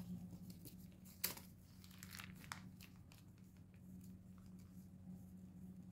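Faint crinkling of a thin plastic sheet protector being handled and lifted away from a cut clay disc: a few soft rustles, the clearest about a second in, over a faint steady low hum.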